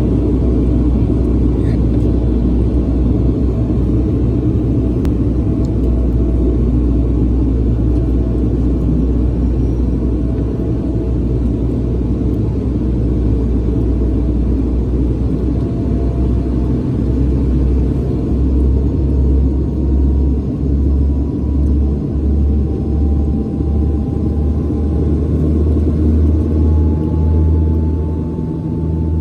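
Cabin noise of a turboprop airliner on approach with its landing gear down: a loud, steady engine and propeller drone. From about halfway through, the low hum throbs in a beat, and a faint thin tone slowly rises in pitch.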